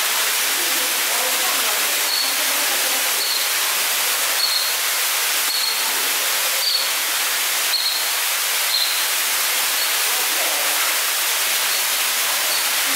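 Steady rushing of running water, like a waterfall or water feature, with short high peeps repeating about once a second through the first two-thirds.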